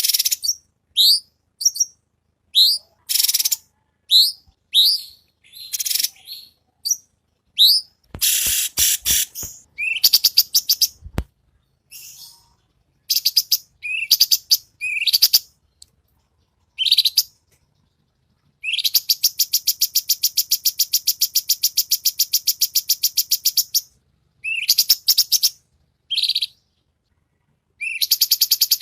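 A cucak cungkok bird singing: short rising whistled notes in quick succession, broken by a long, rapid run of repeated notes (its dense 'shooting' phrase) about two-thirds of the way through and again at the end. A few sharp clicks come between about eight and eleven seconds in.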